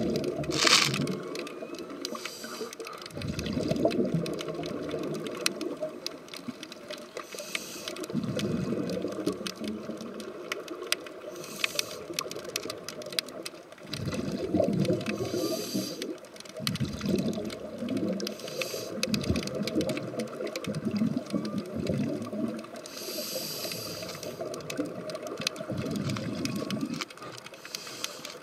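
Underwater sound of scuba diving: muffled bubbling and rumbling in irregular bursts a second or two long, typical of a diver's regulator exhaust bubbles, with a brief hiss a few times.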